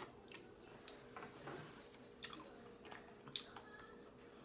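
Quiet chewing and lip-smacking of a person eating steamed lobster tail, with irregular short wet clicks, the sharpest about two and three and a half seconds in. A faint steady hum lies underneath.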